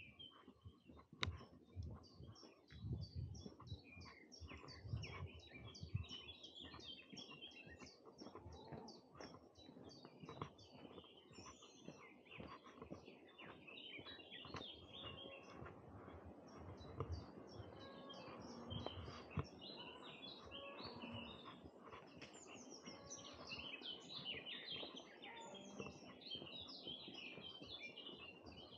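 Faint chorus of many small songbirds singing and chirping together, the calls overlapping without a break. Low soft thuds, most likely footsteps, come irregularly and are heaviest in the first several seconds.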